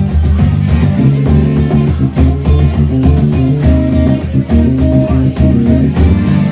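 Live blues band playing an instrumental passage, with electric guitar and bass guitar over a steady drum beat.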